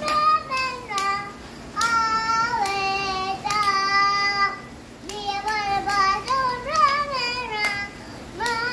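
Young children singing a song in high, held notes, with sharp hand claps keeping time along with it.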